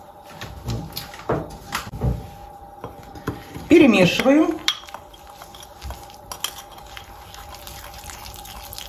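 Metal spoon stirring and scraping in a ceramic bowl, with irregular clinks and taps against the bowl, as mustard powder is mixed into a thick paste of oil, salt, baking soda and honey.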